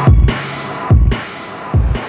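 Electronic background music with heavy bass drum hits about once a second and a hissing, noisy layer between them.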